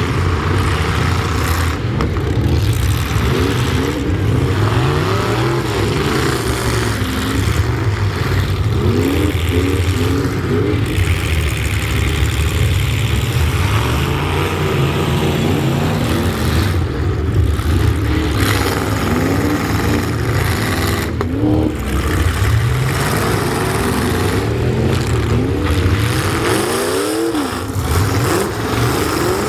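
Truck engines running loudly, with repeated short rises in pitch as they rev and pull.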